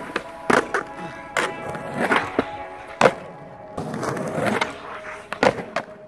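Skateboard tricks on a low metal pipe rail and rough concrete: wheels rolling, the board sliding along the pipe, and repeated sharp clacks of pops and landings, over background music.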